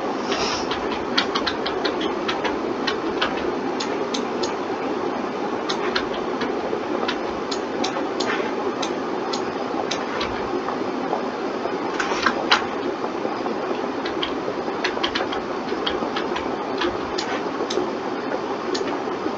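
Irregular, quick clicks of a computer mouse and keyboard over a steady fan-like hum.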